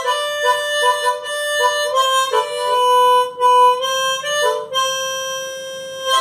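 Harmonica playing a slow melody note by note, ending on a long held note.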